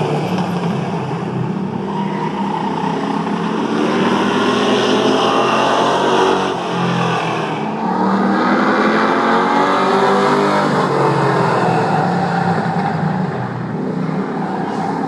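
Several race car engines running hard around a short oval, their pitches rising and falling together as the cars lap and pass, with the sound dipping briefly twice.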